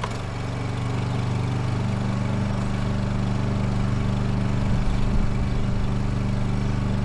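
Honda EU22i inverter generator's small four-stroke engine running steadily, its note stepping up slightly in level and pitch about one to two seconds in.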